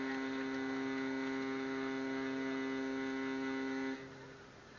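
A steady hum of several pitches held at once, which cuts off suddenly about four seconds in.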